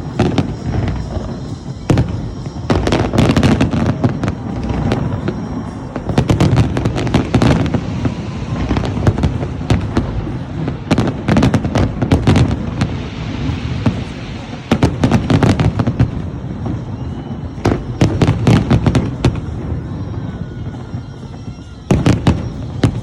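Fireworks display: clusters of sharp bangs and crackles every few seconds over a continuous low rumble of booms.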